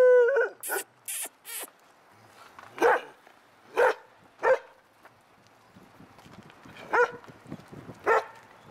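Dog barking. A longer drawn-out bark comes right at the start, then short single barks: two close together about three to four seconds in, another soon after, and two more near the end. About a second in there are three short hissing sounds.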